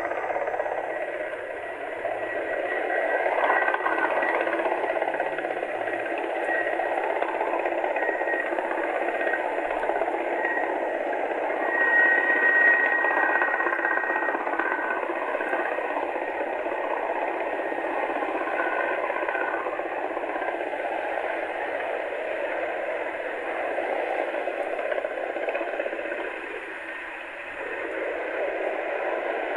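Steady rushing engine and rotor noise of a Navy helicopter in flight, heard through a phone's microphone, with a thin whine that comes and goes, strongest about twelve seconds in.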